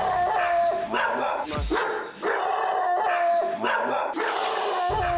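A Doberman and a small white dog barking over and over, several barks drawn out into howls. They are alarm barks at visitors arriving on their territory.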